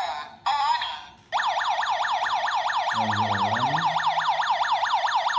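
Alarm siren of the PST-10GDT WiFi GSM alarm system going off after its motion sensor is tripped. It starts a little over a second in, after a few short electronic sounds, and sounds as a fast, evenly repeating warble.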